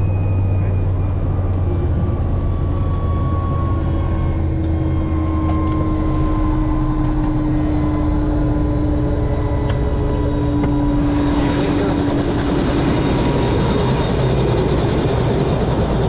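Helicopter turbine engine and rotor running loud and steady, its whine slowly falling in pitch.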